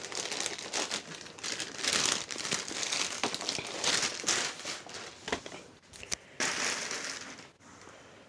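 Thin black plastic carrier bag crinkling and rustling in irregular bursts as it is handled and a DVD case is taken out of it. There are a couple of sharp clicks about two-thirds of the way through, and the rustling dies down near the end.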